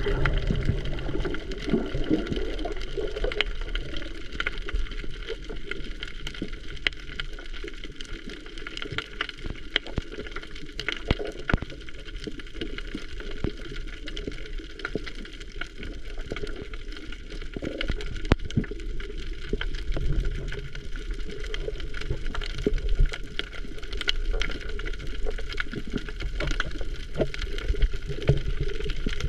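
Underwater ambience picked up by an action camera's microphone: a steady muffled water rush with many scattered sharp clicks and crackles. There is gurgling water movement in the first few seconds.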